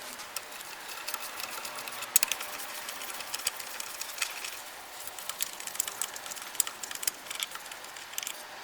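Socket ratchet clicking in irregular runs as bolts are wound out, with small metallic clinks of tools and bolts.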